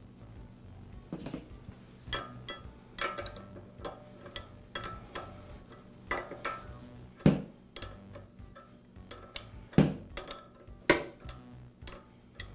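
Irregular metallic clinks and taps of a steel wrench against the brass thermal relief valve and pump head of a Karcher pressure washer as the valve is reinstalled and tightened. The loudest clinks come about seven, ten and eleven seconds in.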